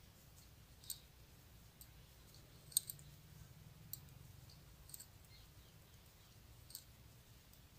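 Knitting needles clicking faintly as stitches are purled by hand: about six light, irregular clicks.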